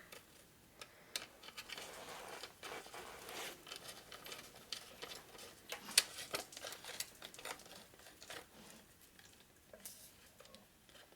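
Hands handling small motorcycle parts: soft rustling and scattered light metal clicks, with one sharper click about six seconds in.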